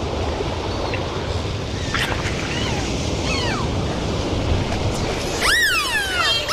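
Steady rushing sea noise, with a few faint gliding tones from about two seconds in. Near the end come louder pitched calls that sweep down in pitch several times in a row.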